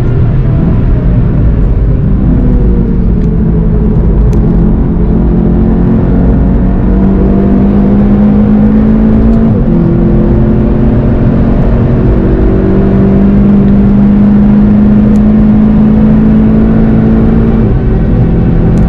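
Onboard sound of a car's engine and tyre noise on a race circuit, heard from inside the car. The engine note falls as the car slows from high speed, then holds steady with a couple of sudden steps in pitch.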